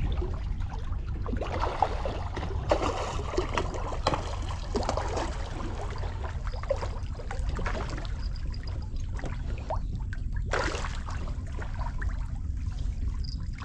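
Water splashing and trickling with irregular small knocks and clatters, over a steady low rumble.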